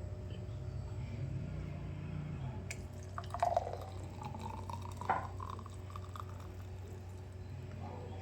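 Smoothie being poured and dripping into a glass, with short sounds about three and five seconds in over a low steady hum.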